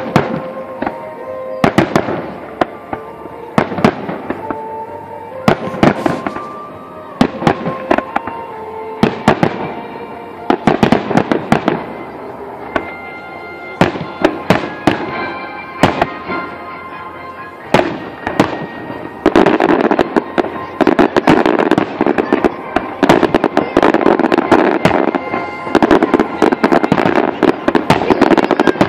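Fireworks display: aerial shells go off one after another as sharp bangs. About two-thirds of the way in, the bursts come much thicker and run together into a near-continuous volley.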